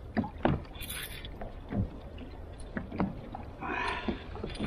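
Scattered short knocks and rustles from a small salmon being unhooked and handled in the lap of an angler on a plastic kayak, over a steady low wash of water against the hull.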